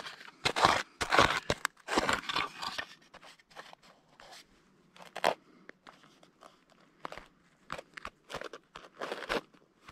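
Plastic scoop digging and scraping through rocky soil and gravel: a quick run of loud, gritty crunches over the first few seconds, then softer, scattered scratches as fingers pick through the dirt.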